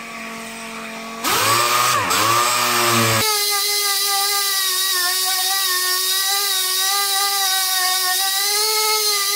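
Dual-action (DA) orbital sander with 220-grit paper running on a car door panel, feathering out the paint around a gouge. A steady whine that gets louder about a second in with its pitch dipping and wavering as it is worked against the panel, then settles at a higher, steady pitch about three seconds in.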